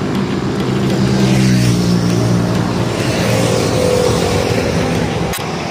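Motor vehicle engine running, its pitch drifting slowly downward, ending in a sharp click about five seconds in.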